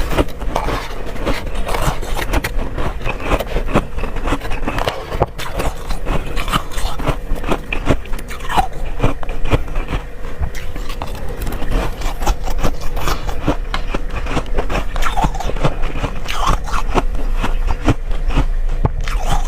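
Freezer frost being bitten and chewed close to the microphone: a dense, continuous run of short crunches and crackles.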